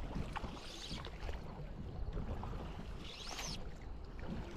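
River water lapping and gurgling against a drifting raft, with a few faint clicks and a brief rising swish about three seconds in.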